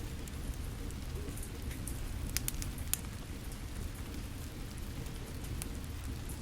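Steady rain with a wood fire crackling, a few sharp pops standing out about halfway through.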